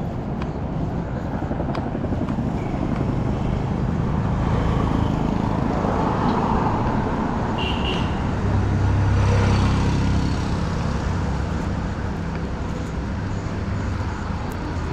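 City street traffic: vehicles running past, with a low engine rumble that grows loudest about nine seconds in as one passes close.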